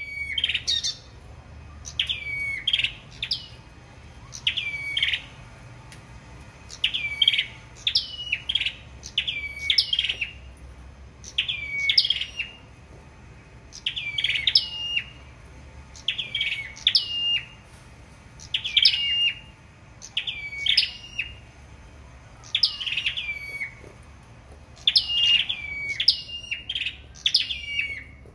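Caged 'sâu đầu đỏ' songbirds (red-headed chim sâu) counter-singing in competition. Short, sharp chirping phrases come every one to two seconds, with birds answering one another.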